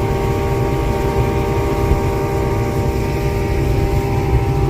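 Two-stroke boat motor running steadily under way: an even hum of several steady tones over a heavy low rumble.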